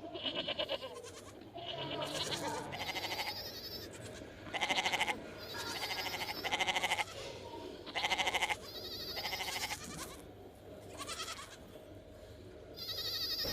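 A flock of sheep or goats bleating: about a dozen short, wavering bleats from more than one animal, some overlapping.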